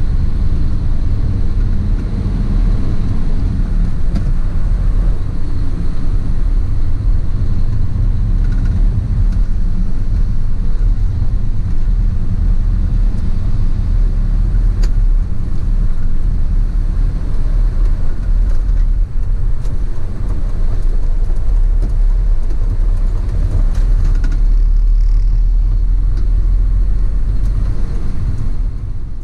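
Motor vehicle on the move: a steady, loud low rumble of engine and road noise.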